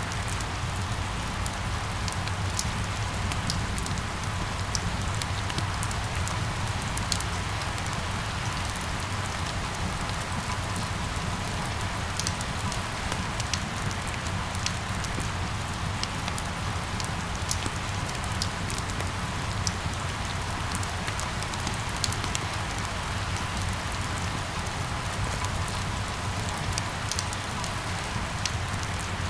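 Steady rain falling, with scattered sharp ticks of individual drops striking a surface over a low steady rumble.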